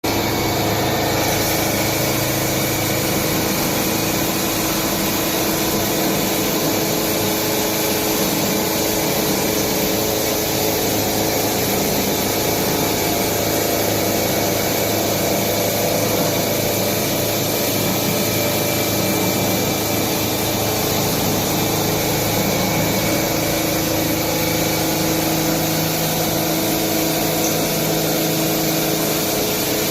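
CNC lathe machining a steel gun barrel: steady machine noise with a constant whine running through it.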